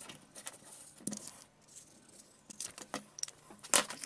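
Faint rustling and clicking of a thin sheet of plastic cut from a milk bottle being handled, then scissors cutting into it in a quick run of snips over the last second and a half, the loudest snip just before the end.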